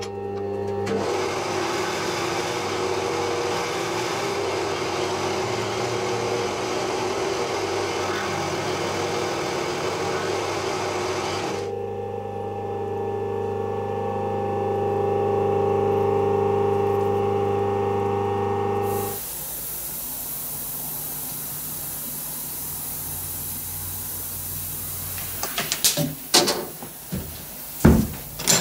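A milling machine's end mill cutting an aluminium part: a dense rasping noise over the spindle's steady hum, until the cut stops about 11 seconds in and the spindle runs on alone. About two-thirds of the way through, the sound gives way to a steady hiss of air at a sandblasting cabinet, with several sharp knocks of the cabinet being handled near the end.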